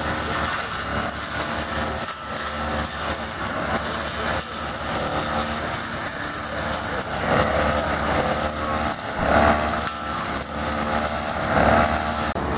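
Motorised brush cutters running as they cut grass, the small petrol engines' pitch rising and falling with the throttle.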